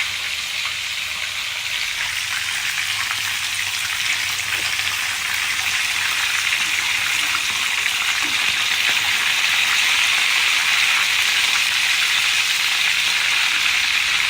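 Fish shallow-frying in hot oil, nearly crisp, with freshly added garlic and onion sizzling around it: a steady hiss that grows slightly louder.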